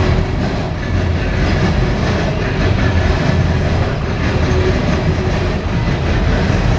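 Coal hopper cars of a CSX freight train rolling past: a loud, steady rumble with the clatter of steel wheels over the rail joints.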